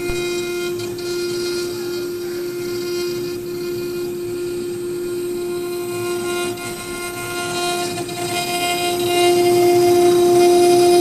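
CNC router spindle running at high speed with a steady whine while its bit cuts into a wooden cylinder turning in the rotary axis, a rough cutting noise under the whine. It gets louder from about nine seconds in.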